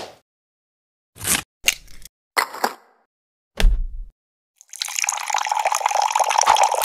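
Cartoon sound effects of items being put into a blender jug: four short knocks and clatters over the first few seconds, the last with a low thud. Then, from near the end, about three seconds of continuous grainy rattling noise.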